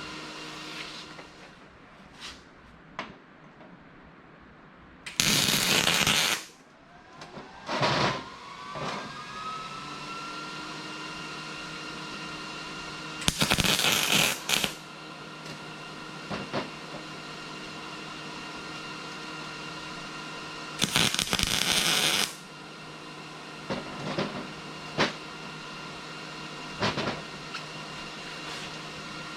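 MIG welder striking an arc in three short bursts of a second or so each, tack-welding a steel nut onto a black-pipe tee.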